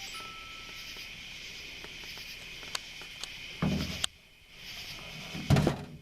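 Insects chirring in a steady high chorus, broken by two louder rustling thumps, one about three and a half seconds in and one near the end.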